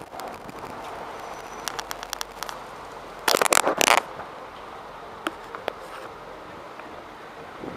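Handling noise from a hand-held camera: scattered clicks, then a loud burst of scraping crackle about three seconds in, over a faint steady background.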